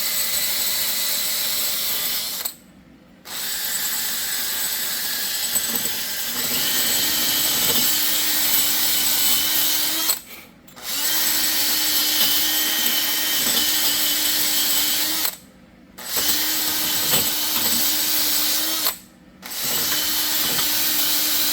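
Power-tool wire wheel spinning against a rusty wheel hub face, scrubbing off rust where the new brake rotor seats. It runs steadily and cuts out briefly four times before starting again.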